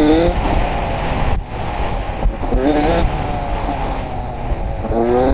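Dirt bike engine under way, rising in pitch as it accelerates at the start, again about two and a half seconds in and near the end, over a steady rushing noise.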